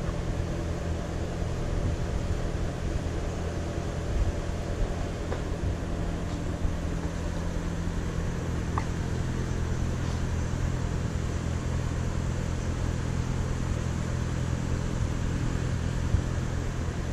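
An engine running steadily, a constant low hum with rumble.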